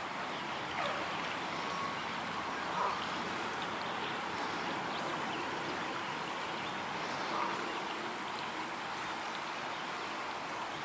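Shallow river water running steadily over rocks, with three short, soft calls from Canada geese spread through it.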